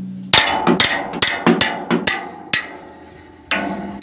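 A quick series of sharp knocks, each with a short ringing tail, about three a second, with a pause of about a second near the end before the knocking starts again.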